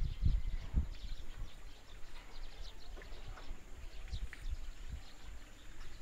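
Small birds chirping: many short, high chirps scattered throughout. Low rumbling thumps near the start.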